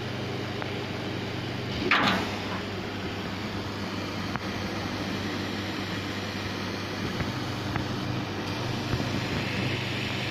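Dual-head laser cutting machine running while it cuts cardboard: a steady low hum with an even hiss, and one brief louder noise about two seconds in.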